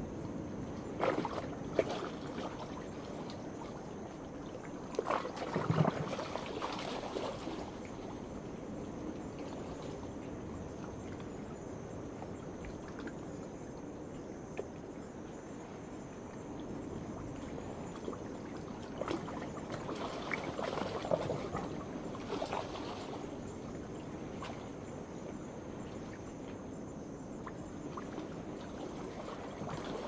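Small waves washing in every several seconds, with a trickling water sound, over a steady high-pitched trill of night insects.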